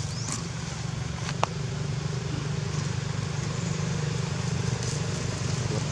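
Steady low engine hum, with one sharp click about a second and a half in.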